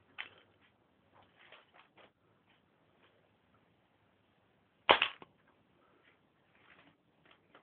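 Homemade K'nex gun firing once about five seconds in, a single sharp snap, with lighter clicks and clatters before and after it.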